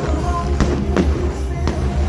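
Loud music with a heavy bass and drums over a stadium sound system, broken by several sharp cracks from a fireworks display.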